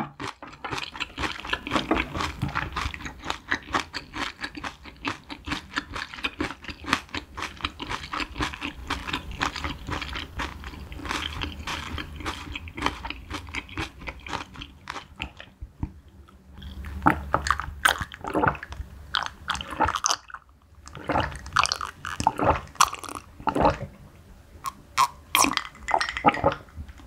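Close-miked chewing of a mouthful of spicy braised cutlassfish and rice: many quick mouth clicks and smacks, with a short pause a little past halfway. Near the end, swallowing gulps from a glass mug of drink.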